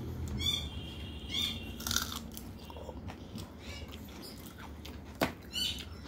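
Chewing and fingers working rice on a metal plate, with short high chirps from an animal in the background several times and one sharp click a little after five seconds in.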